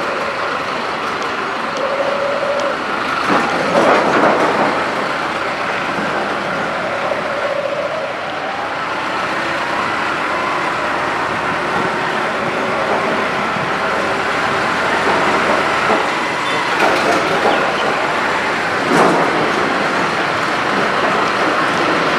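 A motorcycle running at low speed along a street close behind a tractor and trailer. The engine and road noise are steady, and the tractor's engine runs just ahead. There are a couple of louder surges, about four seconds in and again near the end.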